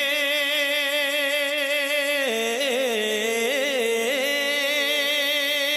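Male naat singer holding a long sung note, steady at first, then wavering in ornaments around the middle before settling back on a steady pitch.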